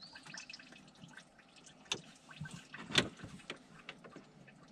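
Scattered clicks and knocks of a truck radiator being worked loose and handled, with one sharper knock about three seconds in, over faint coolant dripping from the disconnected radiator.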